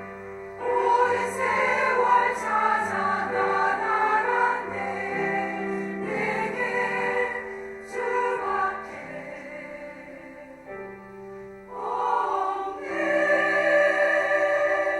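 Women's choir singing a sacred song in Korean, with piano accompaniment. The singing swells loud about a second in, softens for a stretch past the middle, and swells again near the end.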